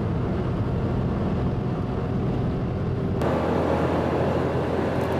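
A gasoline car engine running steadily, then, about three seconds in, a diesel car engine running, louder and with more upper-range noise: a side-by-side comparison of the two engines' running noise.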